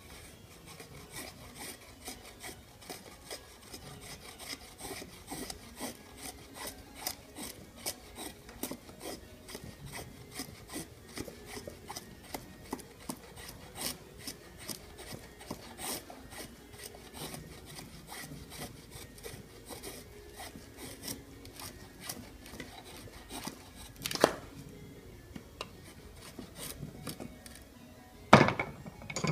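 Knife blade shaving thin curls down a wooden stick to make a feather stick: repeated scraping strokes, about two a second. Two louder knocks come late on.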